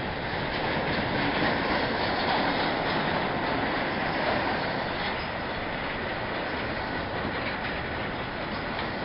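Double-stack intermodal freight train rolling past: a steady rumble of steel wheels on rail, with occasional clacks as the wheels cross rail joints.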